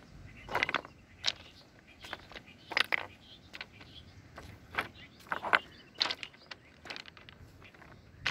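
Footsteps on loose, rounded river stones: irregular clacks and knocks as the stones shift and strike each other underfoot.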